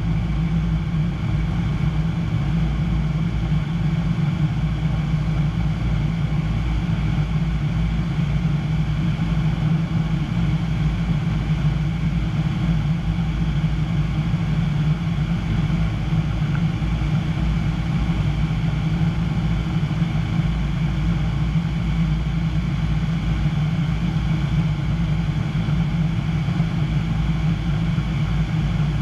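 Piper Pawnee PA-25-235's Lycoming O-540 six-cylinder engine and propeller running steadily in flight, heard from inside the cockpit as a constant drone that does not change.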